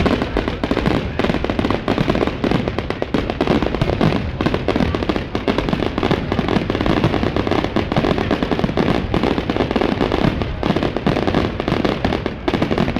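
A dense, continuous barrage of firework bangs and crackles, many bursts overlapping with no break.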